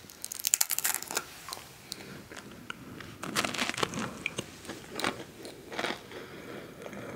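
Close-miked eating of a crunchy salty snack: a quick run of crisp crunching bites about half a second in, then steady chewing with scattered crunches.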